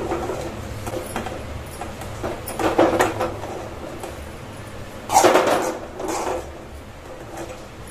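Metal spatula scraping and knocking against an aluminium kadhai while spiced mashed-potato filling is scooped out onto a steel plate, in several short strokes; the loudest scrape comes about five seconds in.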